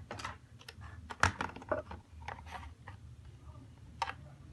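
Irregular light clicks and taps of small tools and phone parts being handled on a workbench, the loudest about a second in and another near the end.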